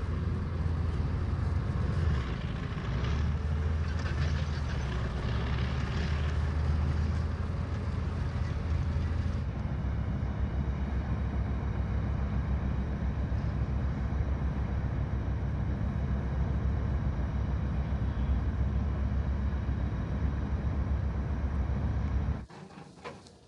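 Heavy military vehicle engine running with a deep, steady rumble. The sound changes character about nine seconds in and cuts off abruptly near the end.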